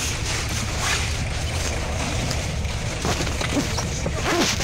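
Scania OmniLink CL94UB city bus heard from inside the passenger cabin while under way: a steady low engine and road rumble with a few faint clicks.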